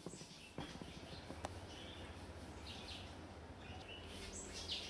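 Faint outdoor garden ambience: short, high bird chirps repeating every second or so, growing stronger near the end, over a steady low hum. A couple of light clicks come in the first second and a half.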